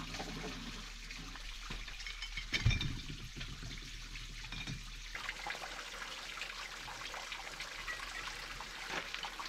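Water running out of a garden hose in a steady trickle, with one dull knock about two and a half seconds in.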